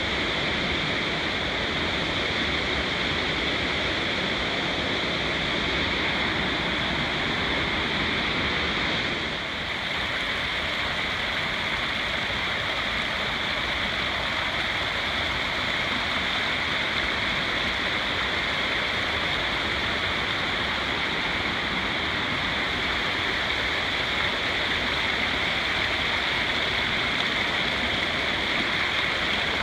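Fast mountain creek rushing and splashing over rocks in a steady water noise, easing slightly for a moment about nine seconds in.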